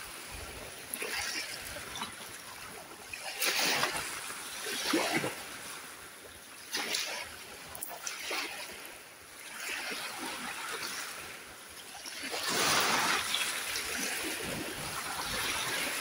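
Small sea waves breaking and washing up onto a sandy beach: a steady hiss with a splashing, fizzing swell every couple of seconds, the largest about twelve and a half seconds in.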